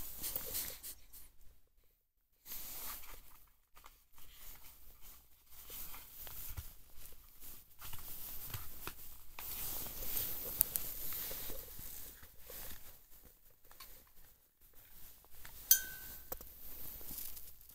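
Handling noise from a plastic wine-accessory case and its sommelier knife: irregular rustling and light clicks and clinks as the tools are moved and the knife is lifted out, with one sharp click and a brief metallic ring a little past two-thirds of the way in.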